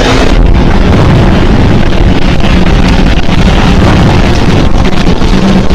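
Very loud, steady wind buffeting the microphone, a heavy low rushing noise with no pauses.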